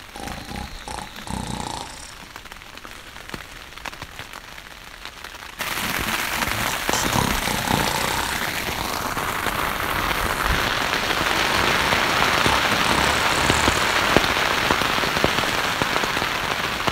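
Rain falling steadily on a tent shelter, with many small drop ticks. It turns suddenly heavier and louder about five and a half seconds in.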